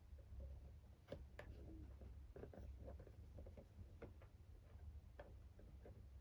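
Faint, irregular clicks and light taps over a low steady hum, as when small items and packaging are handled.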